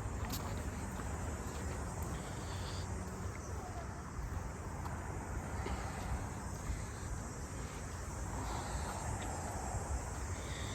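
Insects chirping faintly over a steady low rumble.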